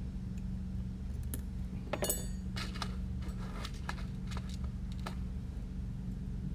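Small metal tools and drone parts clicking and clinking on a silicone work mat. About two seconds in, metal tweezers are set down with a brief metallic ring, followed by a run of light clicks from handling the drone frame, over a steady low hum.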